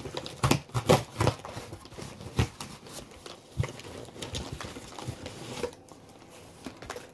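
A parcel being handled and pulled at while it is opened: rustling with sharp clicks and knocks, busiest in the first three seconds, then softer and sparser.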